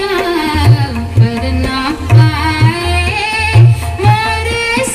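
Indian-style song from a light-and-sound show's loudspeakers: a voice sings a gliding melody over a steady, repeating drum beat.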